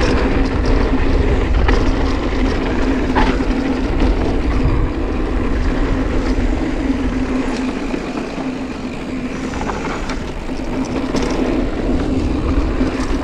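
Mountain bike rolling down a dirt trail: wind buffeting the microphone and tyres running over the dirt, with a few sharp clicks and rattles from the bike. The wind rumble eases for a few seconds past the middle.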